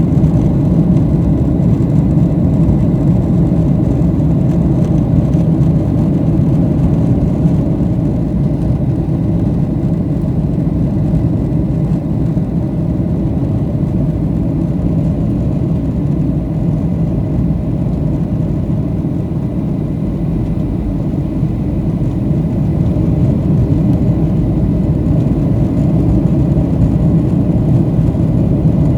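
Steady low drone of a Boeing 737-700's CFM56 jet engines and airflow heard inside the passenger cabin in flight, holding an even level throughout.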